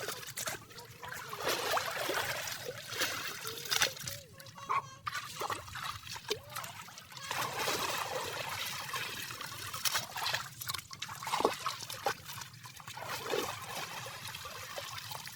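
Shallow water splashing, sloshing and trickling in irregular bursts, with scattered small knocks and clicks.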